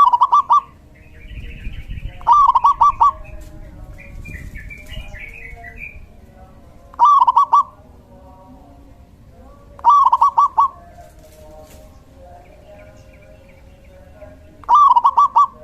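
Male zebra dove (perkutut) singing five short cooing phrases, each a rising note broken into three or four quick stutters, a few seconds apart. Fainter, higher twittering from other small birds sounds between the first phrases.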